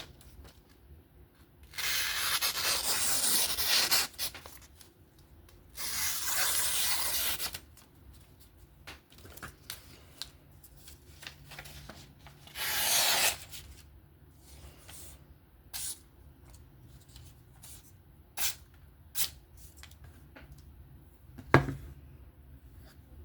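Folding knife blade being stroked along a sharpener: three long, even rasping strokes, followed by light ticks and taps and one sharp click near the end.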